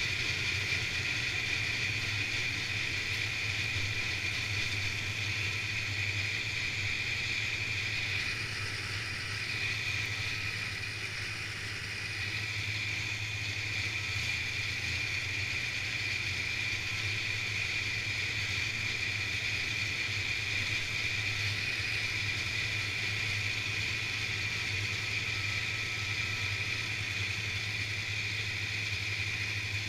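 Snowmobile engine running at a steady cruising speed, with a constant high-pitched whine over the low engine note; it eases off briefly about ten seconds in, then settles back.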